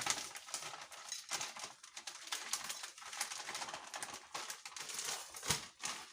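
Rapid crackling and rustling of a plastic feed packet being handled and cut open, with a dull knock about five and a half seconds in.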